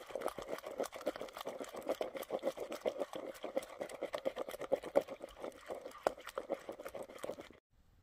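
Hands squeezing and mixing a wet, red food mixture in a bowl: rapid, continuous wet squelching and squishing that stops abruptly near the end.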